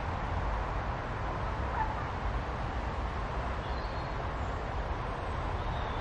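Steady outdoor ambience: a continuous low rumble with a few faint, brief bird chirps, about two and four seconds in and again near the end.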